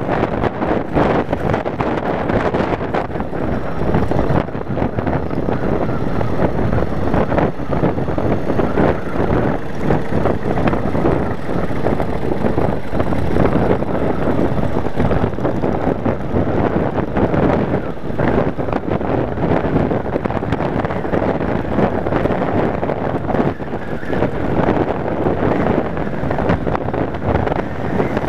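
Wind buffeting the microphone of a Yamaha Wild Star cruiser motorcycle riding at a steady road speed, with its V-twin engine running underneath. The sound stays loud and even throughout.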